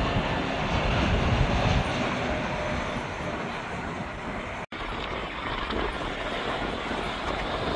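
Jet engine noise of Airbus A321neo airliners on approach with landing gear down: a steady, even rush of sound, heaviest in the low end early on. About two-thirds of the way through, the sound cuts out for an instant and resumes with a second approaching airliner.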